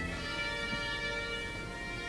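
Music: soft, sustained held chords, with a deep bass note dropping out at the very start.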